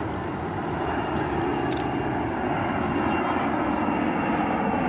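Jet aircraft passing overhead: a steady rushing engine drone that slowly grows louder, with a faint high whine held through it.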